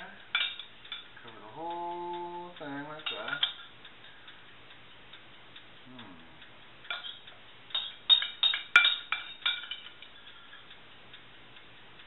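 Metal spoon clinking and scraping against a ceramic bowl and the paste-covered fish, with a few clinks near the start and a quick run of sharper clinks about seven to ten seconds in.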